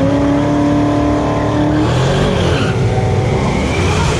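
Drag race car's engine at full throttle, its pitch climbing steadily for about two seconds and then changing.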